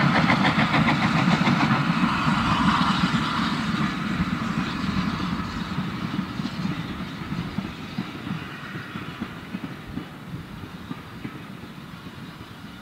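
SECR H class 0-4-4 tank locomotive working a train of wooden carriages past and away, its steam exhaust beats and the rumble and clatter of the carriage wheels fading steadily as the train recedes.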